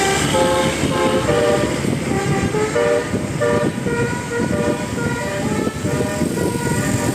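Bus telolet horn, a set of air-horn trumpets, playing a quick tune of short stepped notes over a low rumble.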